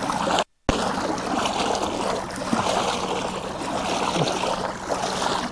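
Water splashing and rushing steadily as a small boat is paddled, with a brief dropout about half a second in.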